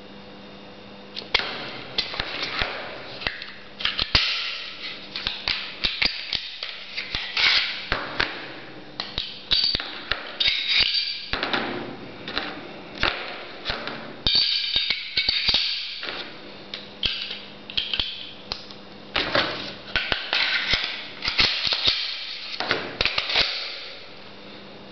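Glock pistol being field-stripped and reassembled by hand: irregular metallic clicks and clacks of the slide, barrel and recoil spring coming apart and going back together, with parts knocking and scraping on the table, starting about a second in.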